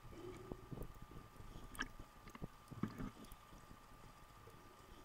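Faint muffled sound of a camera recording underwater: low water rumble with scattered clicks and knocks, the loudest about two and three seconds in, and a faint steady high whine.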